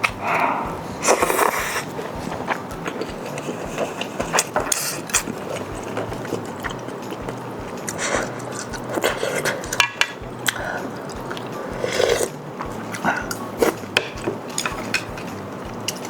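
A person eating close to the microphone: chewing and mouth sounds with many short sharp clicks and smacks, and a few longer noisy slurps.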